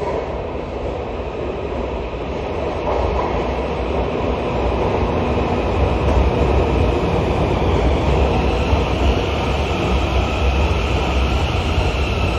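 CRRC metro electric multiple unit running on track: a steady rumble that builds louder over the first several seconds, then holds. Faint whining tones from its IGBT-VVVF traction equipment begin to come through near the end.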